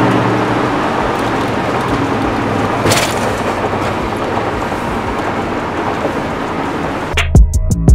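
Steady rushing engine and road noise heard from inside a moving vehicle's cabin, with a single knock about three seconds in. Music with a drum beat cuts in near the end.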